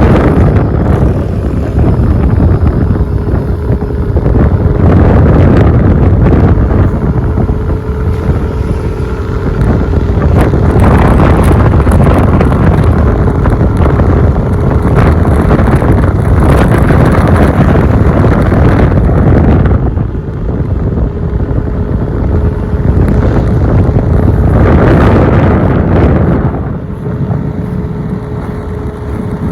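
Heavy wind buffeting on the microphone from riding a moving vehicle, with road and engine noise underneath and a faint steady hum that comes and goes.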